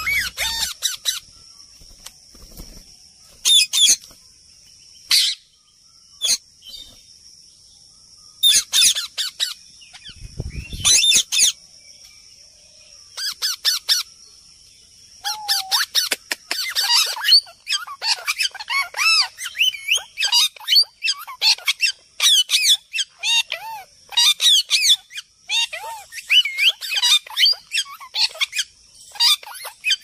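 Alexandrine parakeets calling: scattered harsh squawks at first, then from about halfway through a rapid, almost unbroken run of chattering calls. A steady high whine sits in the background during the first half.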